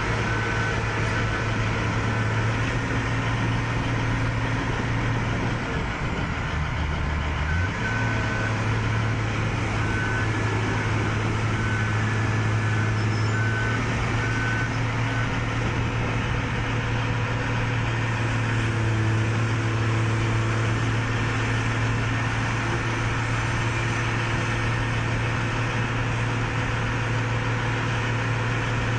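Heavy construction machine's engine running steadily, its note dipping briefly a quarter of the way in, with a reversing alarm beeping in short runs through the first half.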